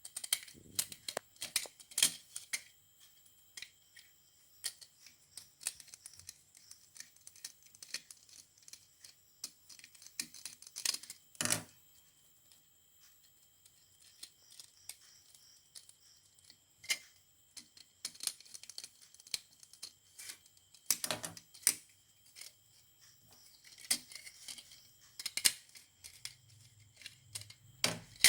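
Irregular clicks, snips and small metallic taps of hand tools and wires being worked on switch terminals, at an uneven pace with short pauses.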